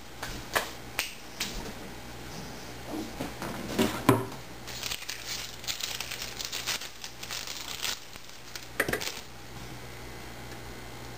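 Plastic wrapper of an individually wrapped American cheese slice being peeled open: a run of quick crinkles and crackles from about five to eight seconds in. A few light knocks and clicks come before it and another pair just before nine seconds, over a faint steady low hum.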